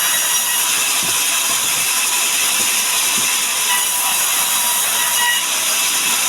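Sawmill saw cutting through a mahogany log: a steady, loud, high-pitched rushing noise with a faint whine that does not let up.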